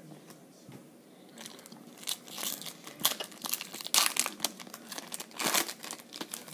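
Crinkling of a foil trading-card pack wrapper being handled and torn open, in a run of sharp crackles that grows loudest about four and five and a half seconds in.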